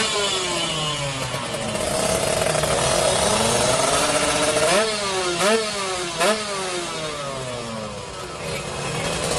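Kawasaki Ninja 150 R two-stroke single-cylinder motorcycle engine, tuned for drag racing, being revved in blips. Its pitch sinks slowly at first, then shoots up sharply and falls back three or four times in quick succession about halfway through.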